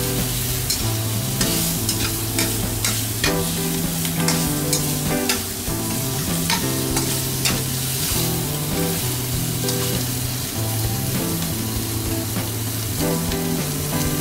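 Pork rib pieces sizzling in hot oil in a wok, with a metal spatula scraping and clicking against the pan again and again as they are stir-fried.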